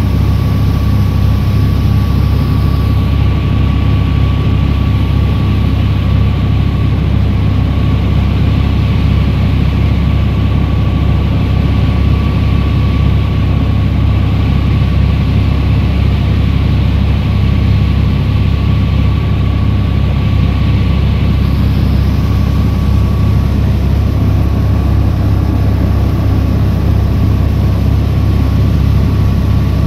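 Engine of a small passenger boat running steadily under way, heard from on board as a loud, constant low drone with a thin steady whine.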